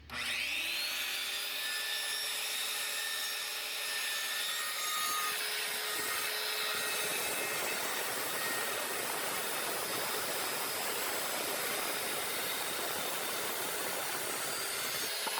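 Circular saw spinning up with a quick rising whine, then cutting through a wooden board with a steady motor whine over the rasp of the blade in the wood. The motor begins to wind down right at the end.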